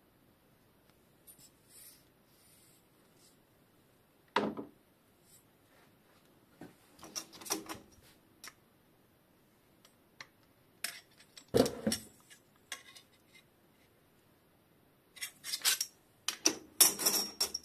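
Handling sounds of a RockShox Judy suspension fork and a steel ruler: scattered knocks with light metallic clinks and rubbing, separated by quiet stretches and busiest near the end.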